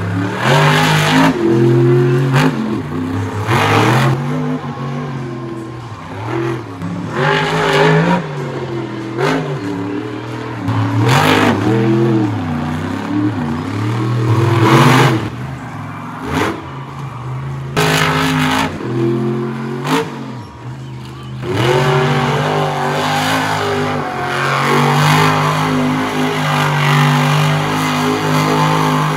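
Monster truck engine revving hard, rising and falling in pitch every few seconds with sharp bursts as the throttle is blipped. Near the end it is held at high revs while the truck spins in the sand.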